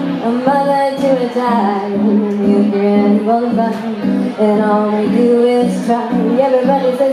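A woman singing solo into a microphone while strumming an acoustic guitar in a steady rhythm, with long held sung notes.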